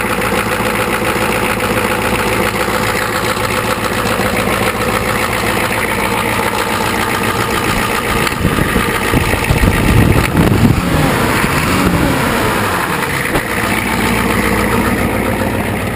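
1985 Ford 6.9L International Harvester V8 diesel running at idle, cold-started without glow plugs after sitting for months. About nine seconds in it is revved up and allowed to fall back to idle over the next few seconds.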